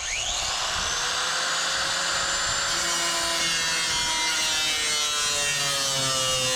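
Power saw spinning up and cutting into roofing, a steady high whine whose pitch sags slowly under load.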